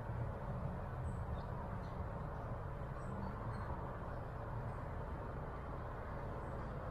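Steady low rumbling background noise outdoors, with a few faint, short high chirps scattered through.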